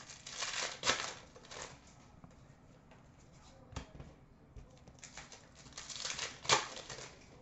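Trading cards and pack wrappers being handled: two bursts of rustling and sliding, one right at the start and one near the end, with a sharp snap near the end.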